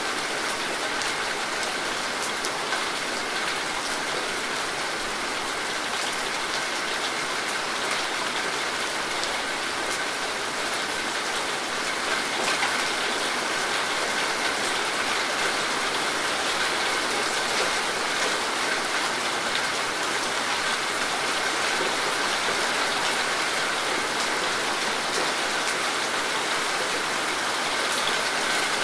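Steady rain falling on dense tropical vegetation: an even hiss with scattered ticks of individual drops.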